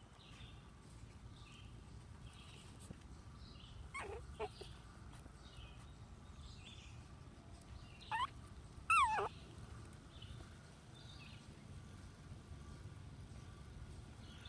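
Chihuahua puppies giving a few high yelps that fall steeply in pitch: a short one about four seconds in, then two more around eight and nine seconds, the last the loudest and longest.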